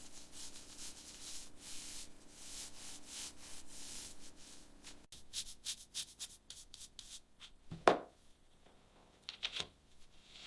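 Rapid hand sanding or rubbing strokes, over a faint steady hum. About five seconds in the sound cuts off, then comes a run of separate scrapes, with one louder swipe near eight seconds.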